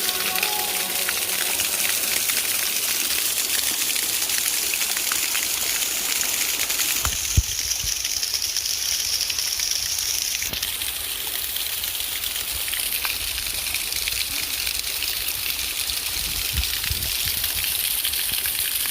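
Steady rushing of a waterfall pouring into a river, with one sharp knock about seven seconds in.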